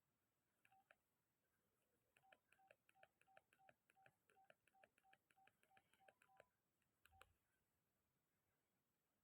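Very faint keypad beeps from a Nokia 1265 mobile phone. One short beep comes about a second in, then a quick run of about a dozen identical short beeps, roughly three a second, and a single click near the end.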